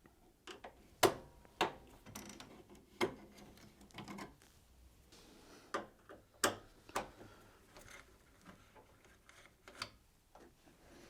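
Screws being undone with a Phillips screwdriver and the top panel of a Samsung ecobubble washing machine being lifted off: irregular light clicks and knocks, the loudest about a second in and again about six and a half seconds in.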